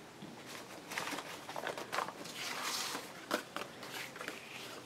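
Paper and craft materials handled on a tabletop: light rustling with scattered small taps and clicks, and a longer rustle or sliding sound between about two and three seconds in.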